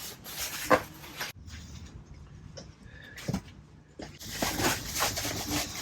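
A dog making a few brief sounds, with rustling and knocks of movement near the end.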